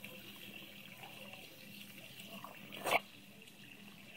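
Garden hose spraying a thin jet of water onto the grass, a faint steady hiss. About three seconds in, a pug puppy gives one short loud snort with its nose in the spray.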